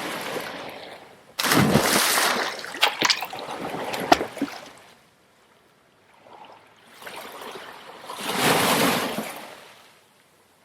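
Sea water splashing and surging in swells, a sudden loud surge with a few sharp knocks about a second in and another surge near the end.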